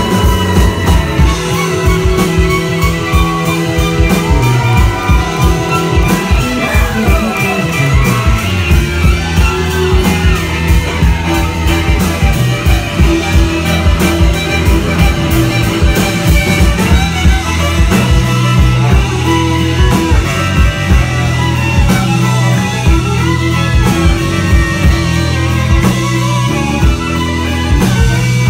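Live country band playing an instrumental passage: electric bass, guitars and a steady drum beat, with a lead instrument bending notes about six to eight seconds in.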